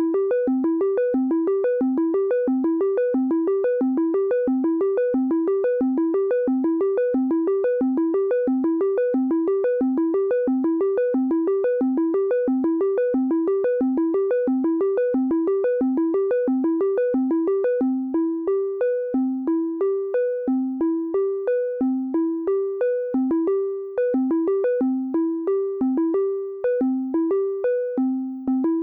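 Elektron Monomachine synthesizer running its arpeggiator: a fast repeating run of short notes stepping up and down in pitch. About two-thirds of the way through, the pattern changes to longer notes in an uneven rhythm.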